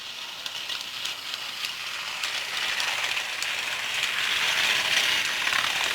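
Toy jet engine attachment from a Thomas and the Jet Engine Trackmaster set, its jet sound effect running as a steady rushing hiss that grows slightly louder, with light clicking and rattling.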